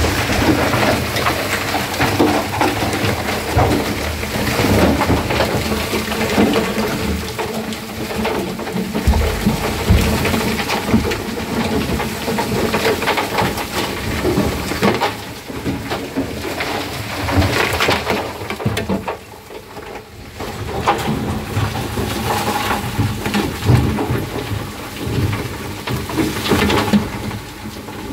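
High-pressure water jet blasting hardened ready-mix concrete out of a concrete mixer truck's steel drum: a dense, continuous spray, with broken concrete and water rattling and splashing against the drum. The noise dips briefly about two-thirds of the way through.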